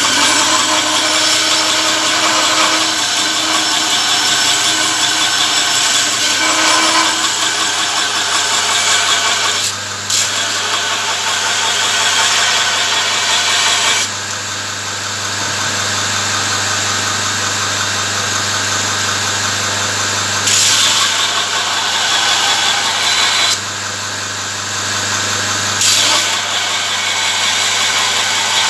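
Electric belt grinder running, its abrasive belt grinding a forged leaf-spring-steel spear head: a steady motor hum under a loud grinding hiss. The hiss swells and eases several times as the blade is pressed harder and eased off the belt.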